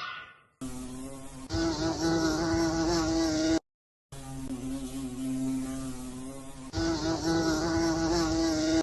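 Flying insect buzzing steadily at one constant pitch, in two stretches with a short silent break about three and a half seconds in.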